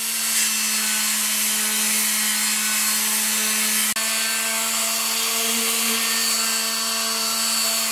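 Electric palm sander with 150-grit sandpaper running steadily, a constant motor hum over the hiss of the pad rubbing on the wood and plastic wood putty patch. There is a brief break about four seconds in.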